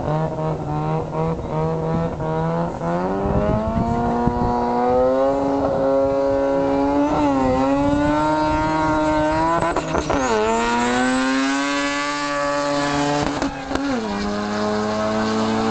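Drag-racing car engine idling, then launching and accelerating hard down the strip. The engine pitch climbs through the gears and drops sharply at three shifts, about 7, 10 and 14 seconds in.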